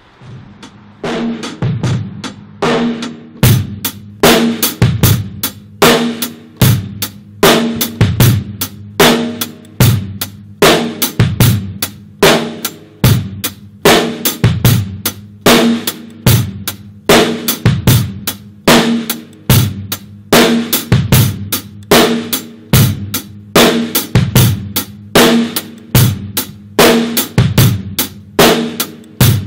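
Acoustic drum kit playing a steady rock groove with kick, snare and cymbals, a heavy accent a little more than once a second. It fades in with quieter hits and settles into the full beat about three seconds in.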